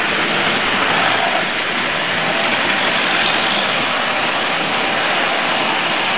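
Tri-ang model freight train rolling past close by: a steady rumble and rattle of many wagon wheels on the track.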